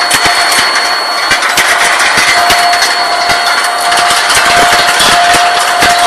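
Steel ball hot-rolling line running: a dense, continuous metallic clatter of many rapid impacts as steel balls knock along the steel conveyor and chutes, with a steady whine over it that fades out briefly a little over a second in.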